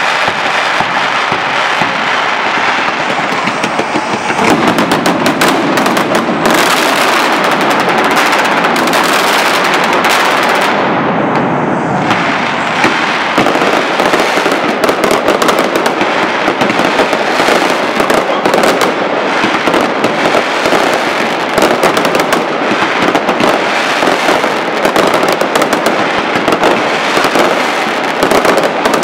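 Mascletà: a dense, unbroken barrage of firecrackers going off in very rapid succession, loud throughout, growing heavier about four seconds in.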